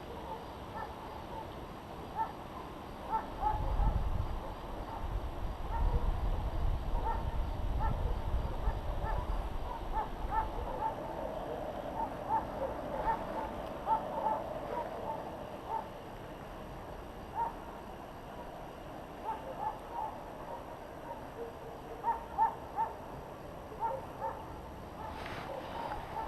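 Short bird calls repeated irregularly, with a low rumble for several seconds starting a few seconds in.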